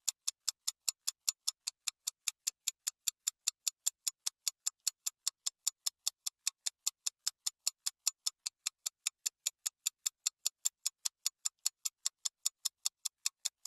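Rapid, evenly spaced clock-like ticking, about four to five sharp ticks a second: a ticking sound effect laid over fast-forwarded footage.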